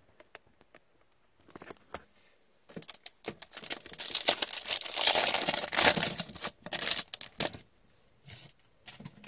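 Foil wrapper of a 2019-20 O-Pee-Chee Platinum hockey card pack being torn open and crinkled in gloved hands. A dense crackly rustle builds about three seconds in and dies away about seven seconds in, with a few light crinkles before and after.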